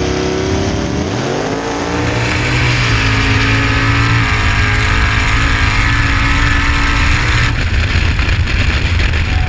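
Drag race car engine at full throttle down the track, its pitch climbing in steps as it accelerates, with a heavy rushing noise over it.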